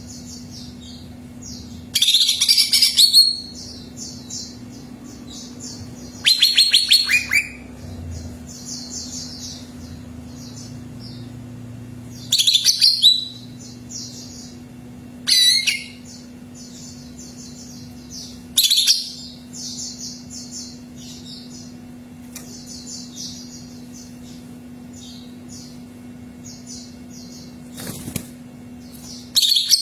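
Cucak ijo (leafbird) singing: a continuous run of high chirps, broken every few seconds by louder, fast trilled phrases. A steady low hum runs underneath.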